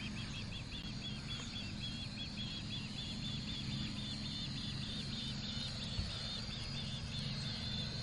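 Osprey calling: a fast, even series of short, high whistled chirps, about four a second, stopping about a second before the end. A steady low hum runs underneath, with one brief knock about six seconds in.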